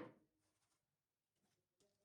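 Near silence: room tone, with a soft knock at the very start and a faint tick near the end.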